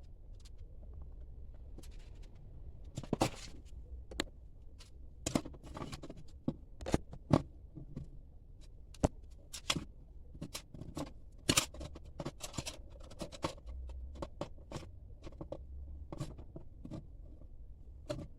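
Irregular clicks, taps and short scrapes from a metal mouse trap being handled, with a few sharper clinks scattered through.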